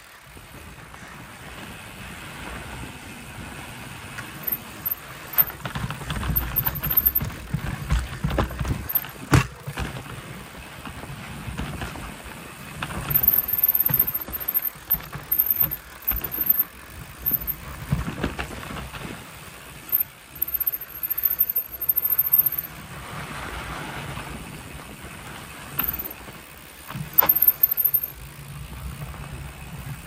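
Mountain bike ridden down a dirt trail: tyres rolling over dirt and rock, the bike rattling and knocking over bumps, with a sharp knock about nine seconds in and another near the end, and wind rumbling on the microphone in gusts.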